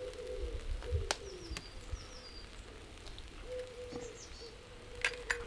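A pigeon cooing over and over, with small birds chirping faintly. Near the end, two sharp taps of an egg being cracked on the rim of a bowl.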